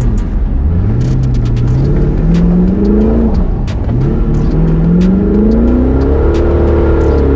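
A cheap rally car's engine revving hard, its pitch climbing and then dropping several times as it accelerates, shifts and lifts off. Scattered sharp ticks sound over it.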